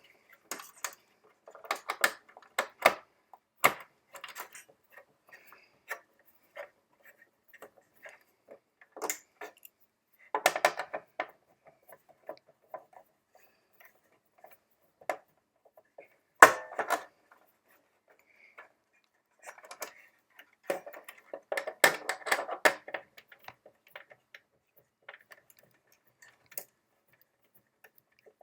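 A screwdriver undoing the four small screws that hold the joystick assembly in a Korg Triton Extreme keyboard: scattered metal ticks and light clatters in several bunches, the loudest a sharp click about halfway through.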